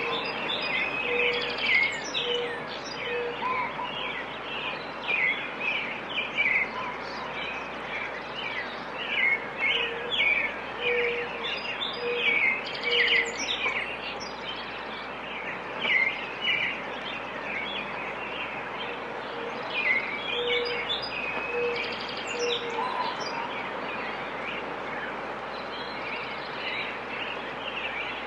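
Many birds chirping and twittering in quick, overlapping calls over a steady background hiss. A lower run of four or five even notes recurs three times, about ten seconds apart.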